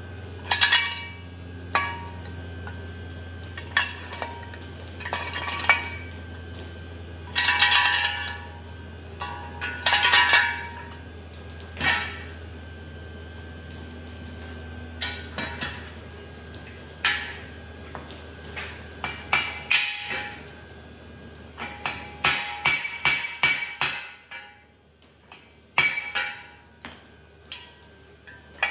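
Hammer striking a steel jack stand, with sharp metal-on-metal clanks that ring briefly. The blows come singly and in short clattering bursts, then as a quick run of taps near the end, as a piece of the stand is folded over so it can't come apart.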